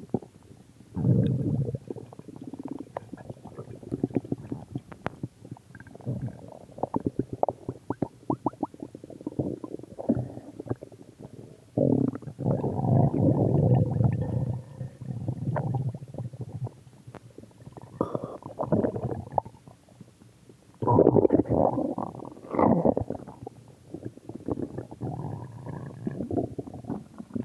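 A person's stomach growling in irregular bouts, full of small pops and clicks. Some bouts are short and others last a few seconds; the longest starts about twelve seconds in, and another loud one comes about twenty-one seconds in.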